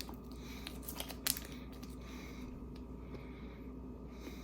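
Faint chewing of a turkey-and-beef peppered meat snack stick, with scattered small clicks and one sharper click just over a second in.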